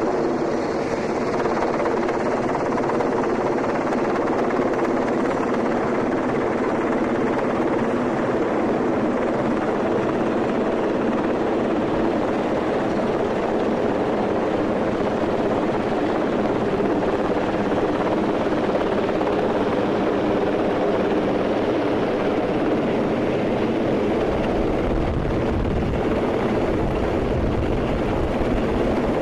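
Helicopter hovering close overhead with a sling load, its rotor and turbine making a loud, steady beating drone. Deep low-end rumble builds near the end as the net of cargo is set down on the ground below it.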